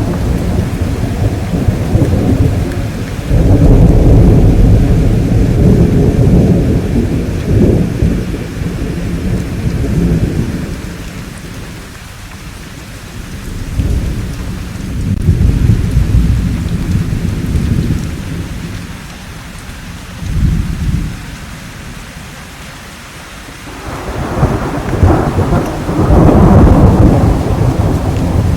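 Thunderstorm: rolling thunder rumbling in several long swells over steady rain. The loudest rumbles come a few seconds in and again near the end, with quieter rain-only stretches between.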